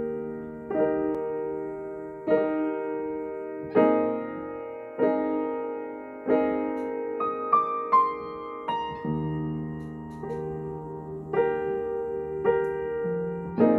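Piano playing a slow piece: sustained chords struck about every second and a half, each ringing out and fading, with a brief run of higher single notes in the middle.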